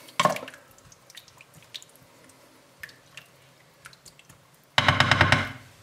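Cream sauce in a nonstick pan coming to the boil while a spatula stirs it: soft wet squelches and scattered small pops and drips. Near the end there is a louder buzzing burst lasting about half a second.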